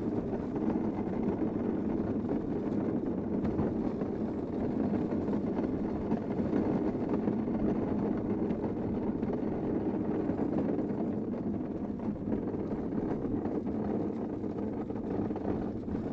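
Engineless downhill gravity kart rolling fast down an asphalt track: a steady rumble of its wheels on the tarmac, mixed with wind on the microphone.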